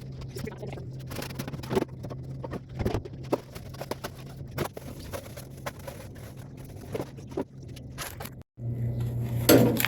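Condiment bottles and jars being handled and wiped, with scattered light knocks and clinks as they are moved and set down, over a steady low hum. The sound cuts out for a moment near the end.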